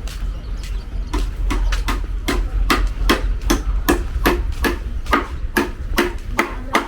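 A quick series of sharp knocks, roughly three a second, like hammering, over a steady low rumble.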